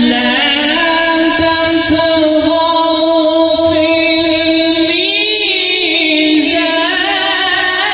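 Melodic Quran recitation (tilawat) by a male qari, in long drawn-out held notes that step between pitches. A wavering ornament on a note comes about five seconds in.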